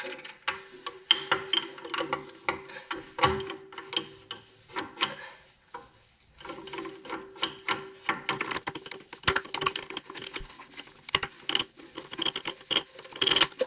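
Steel gears and shaft in an Allis Chalmers 5015 garden tractor transaxle clicking, clinking and scraping as the input shaft is turned back and forth by hand to get its gears to mesh and slide into place.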